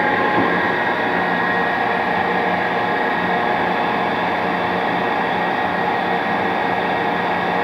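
Polamco Tarnow TUJ-50M engine lathe running under power: a steady hum with several steady whining tones.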